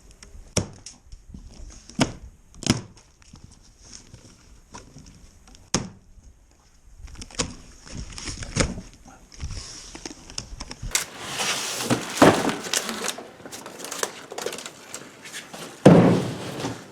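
Unboxing a mini bike: scattered knocks and clicks, then a few seconds of rustling and tearing packaging, and one heavy thump near the end.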